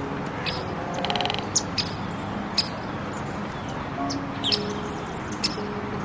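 Soft background music of slow held notes, with short high bird chirps every second or so and a brief rapid rattling trill about a second in, over a steady hiss.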